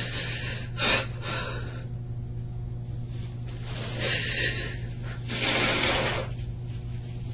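A person breathing deeply, with three audible breaths, about a second in, around four seconds and near six seconds, over a steady low hum.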